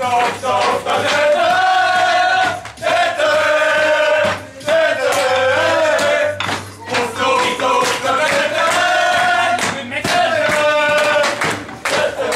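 A group of men singing a chant-like song loudly together, with long held notes that rise and fall.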